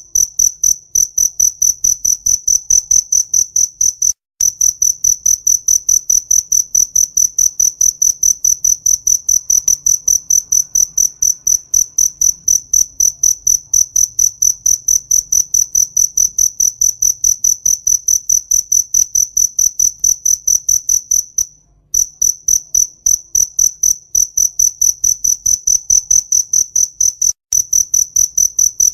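A cricket chirping close and loud: a high, even pulsing chirp, several a second, with a few brief breaks.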